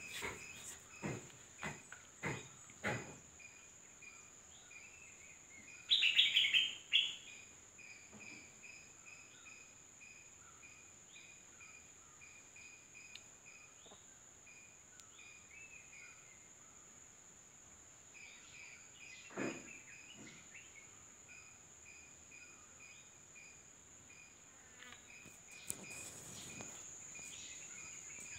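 Insects chirping: a steady high whine with a fast, even train of short chirps. A few knocks sound in the first three seconds, a short louder call about six seconds in, and another knock near twenty seconds.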